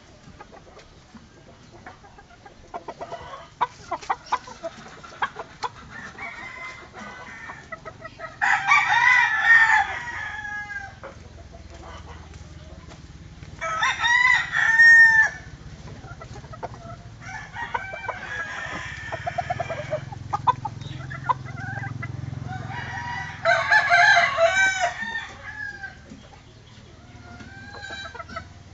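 Gamefowl rooster crowing, about four long crows a few seconds apart, one of them fainter, with short clucks from chickens in between.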